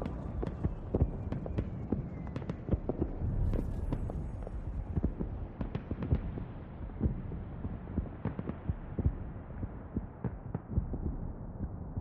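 A quiet, muffled transition between songs in a pop mix: irregular low thumps and sharp clicks over a dull rumble, with the sound growing duller toward the end.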